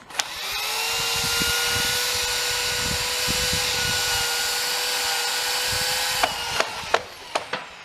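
Chainsaw revving up and cutting through a tree trunk at a steady high speed for about six seconds, then cutting off abruptly, followed by a few sharp knocks.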